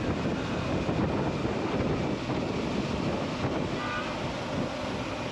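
Wind rushing over the microphone of a moving motorcycle, steady, with road noise underneath.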